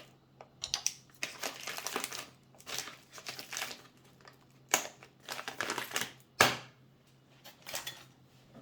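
Irregular crinkling and rustling handling noises with sharp clicks, the loudest near the end, over a faint steady low hum.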